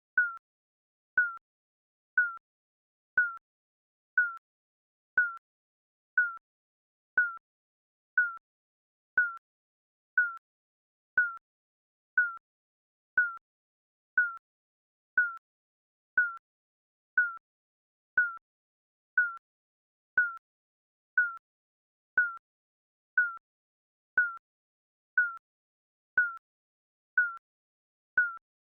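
Digital countdown timer beeping once a second: a short, high beep at each tick, with silence between.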